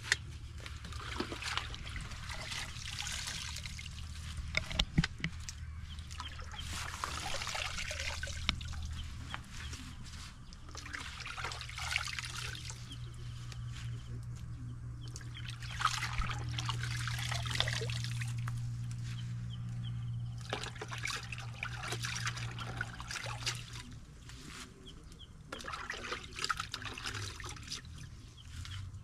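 Hands washing cowpea leaves (kunde) in a plastic bowl of water: water splashing and trickling with the wet rustle of the leaves, in spells of a few seconds that come and go.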